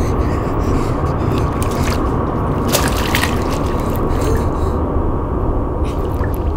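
A loud, steady rumbling drone with scattered wet crackles and squelches, part of a horror film's sound design.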